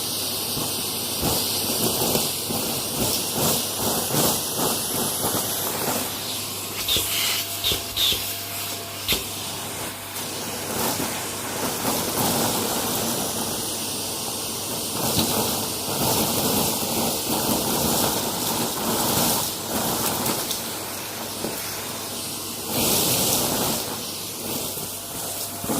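Close-up crunching: a dense, continuous run of small crackles and snaps, louder for a stretch near the end.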